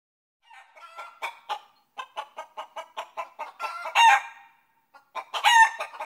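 A chicken clucking in a quick run of short calls, about four or five a second, broken by two louder, drawn-out calls about four and five and a half seconds in.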